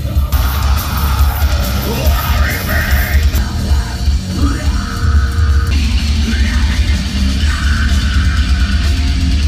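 Loud live heavy metal music played at an outdoor concert, heard from among the audience, with a heavy, pounding low end.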